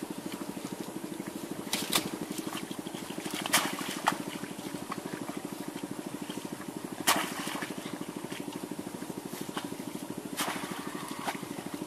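A small engine running steadily with a fast, even putter. Over it come several sharp wet slaps and squelches as hands dig in pond mud, the loudest about two, three and a half and seven seconds in.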